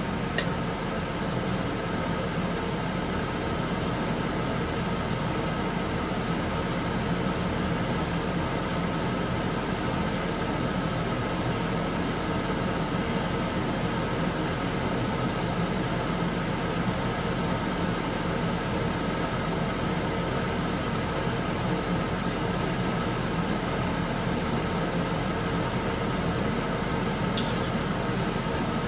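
Beef fat simmering in water in a wok to render tallow, under a steady kitchen hum and hiss. A metal ladle clicks against the wok near the end.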